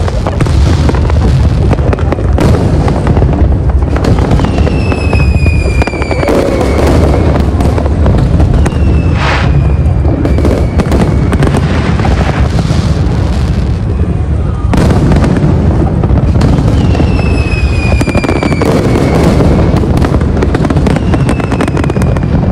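Large fireworks display: a dense, continuous run of shell bursts and bangs with crackling, going on without a pause.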